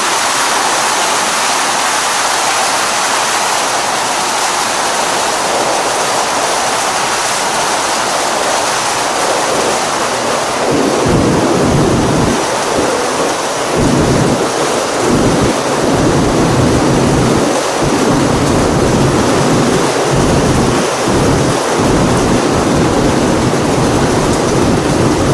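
Heavy rain pouring down in a dense, steady hiss. From about a third of the way in, low rumbling comes and goes on top of it in irregular surges.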